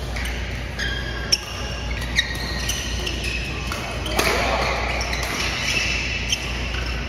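Badminton rally: sharp racket strikes on the shuttlecock and short squeaks of shoes on the court mat, echoing in a large hall, with one hit standing out about a second in.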